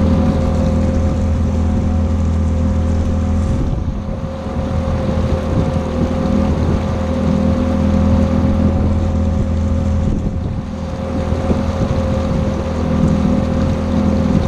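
Tohatsu 9.8 two-stroke outboard motor running steadily under way during its break-in on a new motor, with wind on the microphone; its loudness dips slightly twice.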